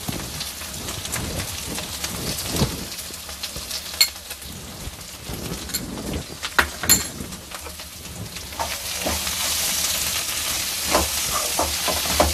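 Potatoes, onion and spices frying in oil in a metal kadai: a steady sizzle with a few sharp metallic clinks. The sizzle grows louder near the end as the mixture is stirred.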